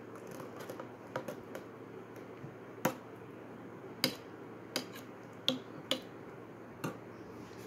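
A spoon stirring yogurt raita in a bowl, knocking against the bowl in a string of sharp, irregular clinks.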